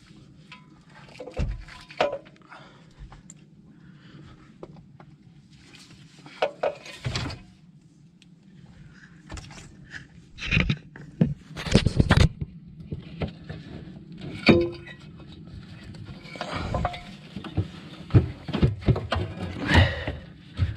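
Metal tools and parts clinking and knocking as they are handled, in irregular bursts, over a low steady hum.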